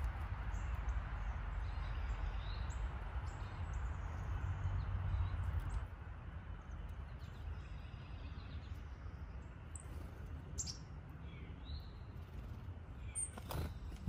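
Small songbirds giving short, high chirps and chip calls on and off, over a low background rumble that eases about six seconds in. There is one sharp click near the end.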